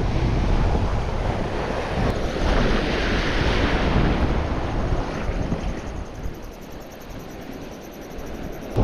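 Surf washing on the shore with wind rumbling on the microphone. The wash swells about three seconds in and dies down toward the end.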